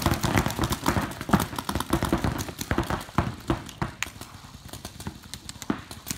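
Paintball markers firing rapid, uneven strings of pops. The firing is heaviest in the first half and thins out after the middle.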